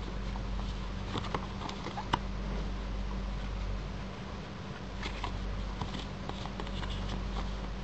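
Paper and cardboard handling: a cardboard documentation folder being opened and its booklet leafed through, with light rustling and scattered small taps and clicks in two clusters, about a second in and again about five seconds in, over a steady low hum.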